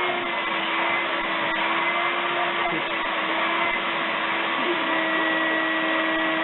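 An electric motor running steadily, with a constant whine over an even rushing noise.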